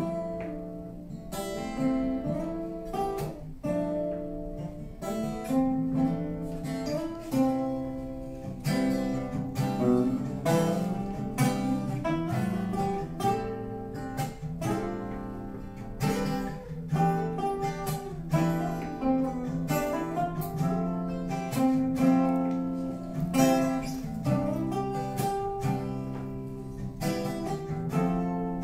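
Two acoustic guitars played together as a duet: a steady flow of plucked notes and strummed chords.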